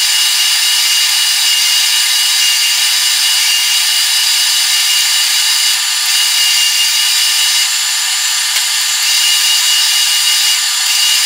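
Metal lathe running steadily while a cutting tool cleans up a rough cast-aluminum handwheel, a constant machine whine with cutting noise.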